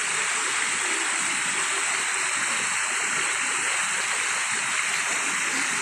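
Mountain stream rushing steadily over rocks in small cascades.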